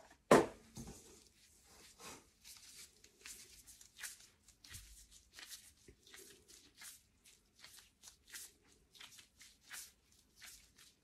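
A sharp knock on the stainless steel worktop just after the start. Then a run of short crinkling and tearing rustles as plastic-gloved hands pull and knead a ball of bubble dough.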